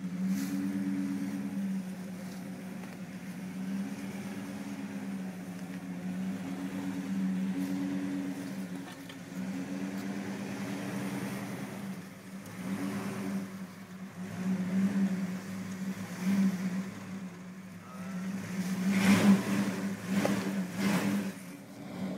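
1994 Jeep Grand Cherokee's engine running at low revs as it crawls over rocks, rising and falling with the throttle, with louder surges a few seconds before the end.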